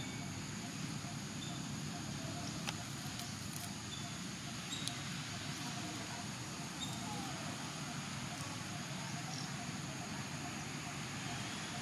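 Steady outdoor background hiss and low rumble, with a few faint, brief high chirps and light ticks scattered through it.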